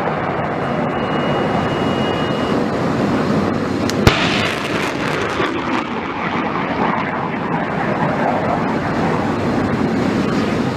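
Loud continuous rushing roar with a single sharp crack about four seconds in, followed by a brighter blast that fades back into the roar.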